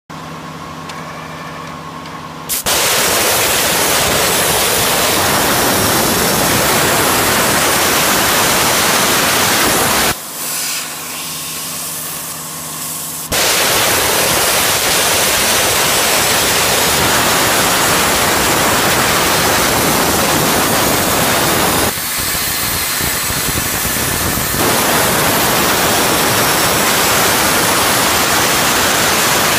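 CNC plasma cutter's torch cutting steel plate: the loud, steady hiss of the plasma arc starts about two and a half seconds in, stops for about three seconds around ten seconds in, then starts again and runs on. A quieter steady hum is heard before the arc starts and during the pause.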